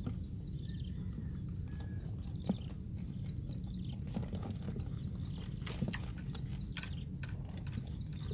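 Outdoor ambience by the water: a steady low rumble with scattered light clicks and ticks.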